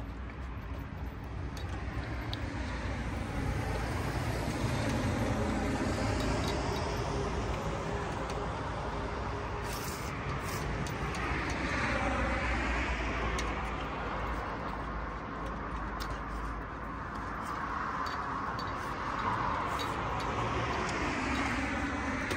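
Road traffic passing: vehicles go by one after another, the sound swelling as each approaches and fading as it leaves, loudest about twelve seconds in and again near the end.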